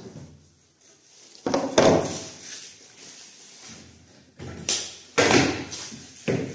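A thin decorative wall panel is laid down and shifted on a wooden work surface, and tools are moved on the bench. Several knocks and scraping rubs come in three clusters, the loudest about two seconds in.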